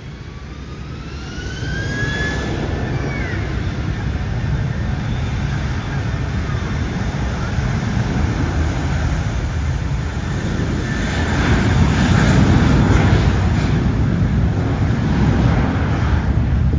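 Jet airliner's engines spooling up for takeoff: a rising whine over the first few seconds, then a heavy jet rumble that builds as the plane accelerates and is loudest about twelve seconds in.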